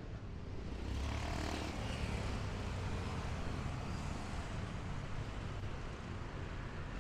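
City street traffic ambience: a steady low rumble of vehicles, with a louder swell of noise about a second in that fades over the next second.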